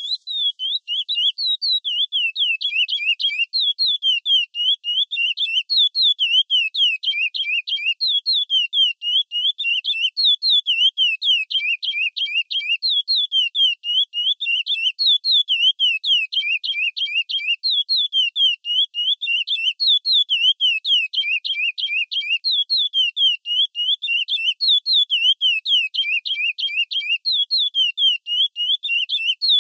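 Curió (chestnut-bellied seed finch) singing the 'praia clássico' song: a fast, continuous series of clear whistled notes that slide up and down, repeated in phrases with brief pauses. It starts suddenly out of silence.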